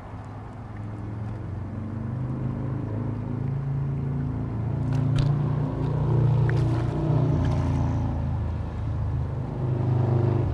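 A motor vehicle's engine running close by, a steady low hum that grows louder over the first half. A few short sharp splashes around the middle as a hooked common carp thrashes at the surface by the canal bank.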